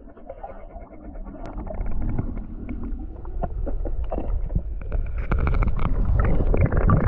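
Underwater sound heard through a diving camera: a steady low rumble of moving water with many scattered clicks and crackles, growing louder from about two seconds in as the diver swims in with the speared snapper.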